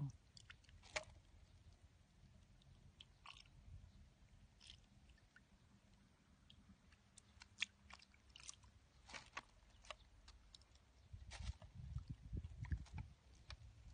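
Faint wet squelching and scattered small clicks of a hand groping through mud and shallow muddy water, with a louder patch of low sloshing about eleven seconds in.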